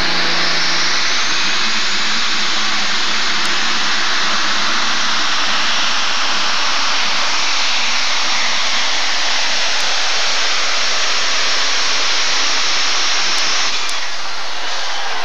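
Super stock pulling tractor under full power, pulling the sled, its engine and turbocharger whine loud and steady. The whine rises in pitch over the first two seconds as it spools up, then holds high, and the sound lets up slightly near the end of the run.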